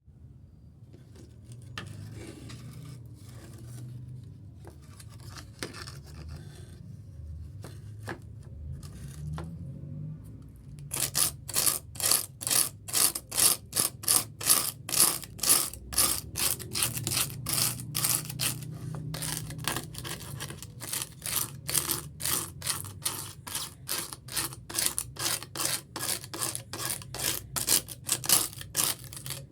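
Rhythmic scraping strokes on fiberglass, about two a second, loud from about eleven seconds in, after quieter scattered rubbing and scraping.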